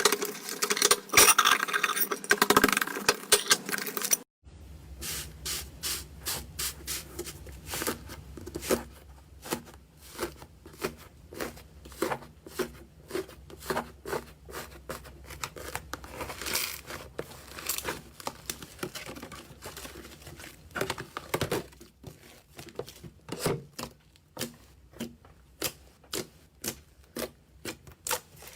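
Slime being played with by hand for ASMR: a dense crackling for about four seconds, then after an abrupt cut a run of short sticky clicks and pops about twice a second as it is squished and poked.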